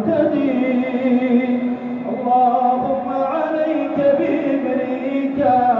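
Male voice chanting a drawn-out, melodic Islamic supplication, with long held notes that shift in pitch.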